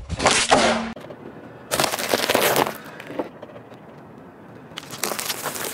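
Car tyre rolling over and crushing objects on asphalt: a foil balloon bursting under the wheel, then a plastic tube of sweets cracking and crunching. Three separate bursts of cracking and crackling noise.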